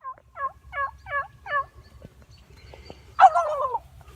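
Turkey yelps made by a hunter calling turkeys: five quick yelps in a row, then a louder, longer falling note about three seconds in.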